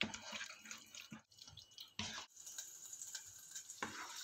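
A silicone spoon stirring creamy carbonara noodles in a nonstick pan, with short wet clicks and knocks. About two seconds in these give way to a faint steady sizzle of the cream sauce simmering in the pan.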